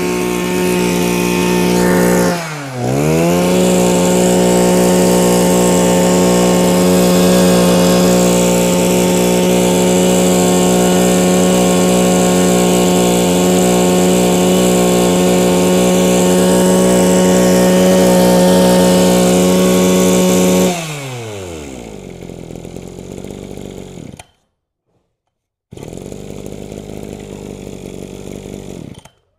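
Mitsubishi TL26 26cc two-stroke brush cutter engine held at high revs with a steady buzz. The revs dip and pick straight back up about two and a half seconds in. About twenty seconds in, the throttle is let off and the revs fall away to a much quieter low running.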